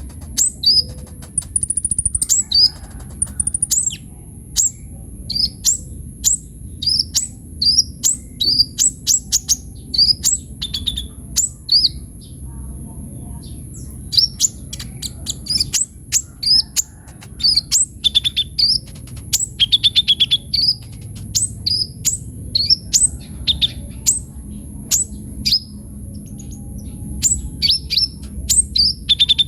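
Kolibri ninja sunbird singing continuously: a fast run of short, sharp, high chirps, several a second, with a couple of short breaks, over a steady faint high-pitched hiss.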